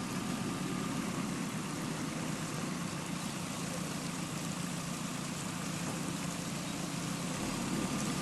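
JCB 3DX backhoe loader's diesel engine running steadily, a low hum with a faint whine above it.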